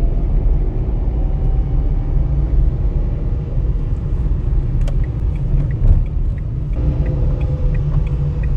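Car driving, heard from inside the cabin: a steady low rumble of road and engine noise, with a faint engine note shifting slightly in pitch as the car turns.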